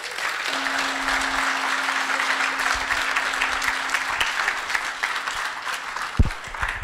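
Audience applauding, thinning out near the end, with a steady low hum under most of it. A single sharp thump comes about six seconds in.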